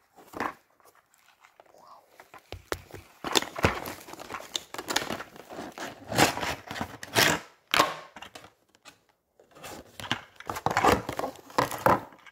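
Cardboard and plastic packaging crinkling and rustling in irregular bursts as a toy truck is unpacked by hand.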